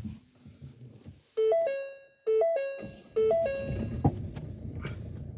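Ford C-Max dashboard warning chime: a short three-note tone sequence that plays three times, about a second apart. It is followed by a click and the low, steady running of the 2.0 diesel engine as it starts.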